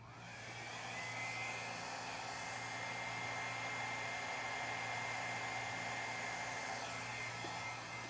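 Small handheld hair dryer running close over wet acrylic pour paint. Its motor whine rises in pitch as it spins up in the first second, then holds a steady high whine over the rush of air. It eases off near the end.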